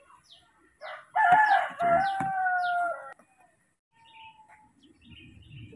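A rooster crowing once, a short first note followed by a long held one. A small bird's repeated short, falling chirps run through it.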